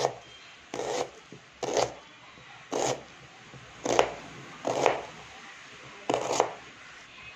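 A knife slicing through a red onion on a plastic cutting board: seven separate strokes, about one a second, each a short slicing sound ending on the board.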